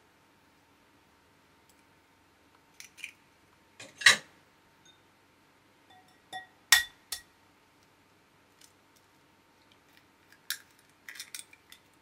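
Eggshells tapping and clinking against glass mixing bowls as eggs are cracked and separated. There are a dozen or so short, sharp knocks: the loudest come about four seconds in and again just before seven seconds, and a quick cluster comes near the end as the next egg is cracked.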